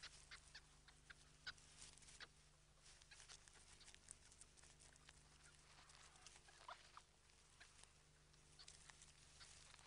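Faint, irregular clicks and crackles of a polecat chewing and tearing at a rabbit carcass, over a low steady hum.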